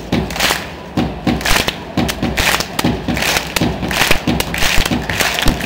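Large crowd of football fans clapping together in rhythm, about two to three sharp claps a second, with crowd voices underneath, ringing in a large indoor arena.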